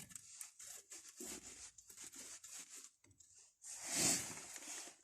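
A wrench tightening a brake caliper bolt: a run of quick, short clicks for about three seconds, then a louder rasping scrape about four seconds in.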